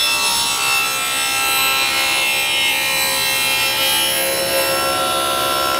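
Table saw running at speed and ripping a wooden board through its guarded blade: a steady, even whine with the sound of the wood being cut.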